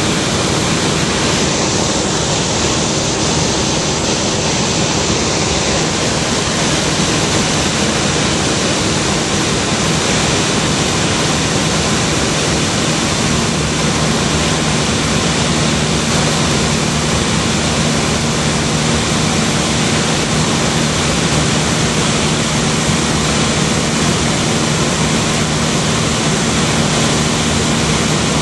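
Steady, loud engine and airflow noise heard inside an aircraft cabin in flight, an even hiss with no breaks. About halfway through, a low steady hum rises out of it.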